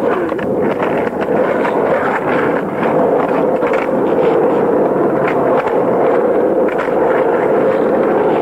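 Skateboard wheels rolling on asphalt, a steady rumble broken by frequent sharp clicks and clacks of the board as tricks are done.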